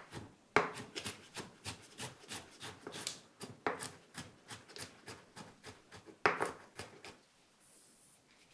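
Kitchen knife finely chopping carrot strips on a wooden cutting board: a quick run of knife taps, about four or five a second, with a few louder strikes. The chopping stops near the end.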